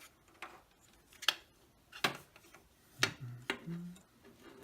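Hard drive and its cables being fitted back into a desktop computer case: a handful of short, sharp clicks and knocks at uneven intervals.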